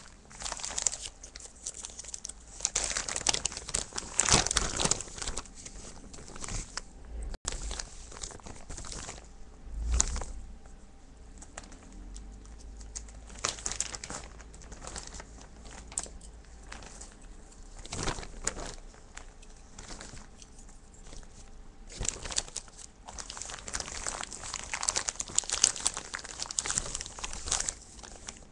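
Plastic zip-top bag crinkling and rustling in irregular bursts as it is handled and pieces of salted pork are put into it.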